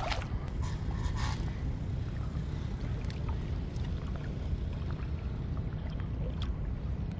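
Steady low rumble of wind on the microphone and water moving around a float tube, with a short splash right at the start as a small released fish hits the water, and a few faint clicks.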